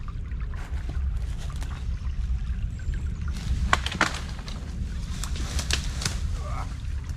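Footsteps and rustling through brush beside a small creek, with sharp crackles like snapping twigs from about halfway in, over a low steady rumble.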